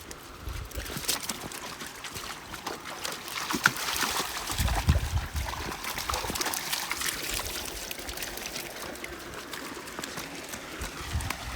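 Water trickling and splashing, with many small crackles and clicks. A low rumble, like wind on the microphone, comes about four seconds in and again near the end.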